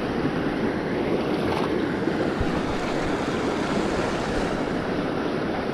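Swift river water rushing over rocks: a steady, even rush.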